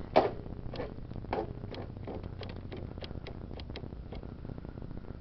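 A John Deere 14SE lawn tractor's starter solenoid clicking instead of cranking the engine: one sharp click, then a run of lighter clicks that come quicker and fade out about four seconds in, with the engine not turning over. The owner first suspects the starter, then puts it down to a charger that failed to charge the new battery.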